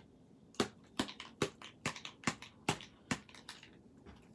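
Finger-pump nozzle of a Dylusions spray bottle pressed over and over, about eight sharp plastic clicks at roughly two a second. The sprayer is clogged and is not yet spraying.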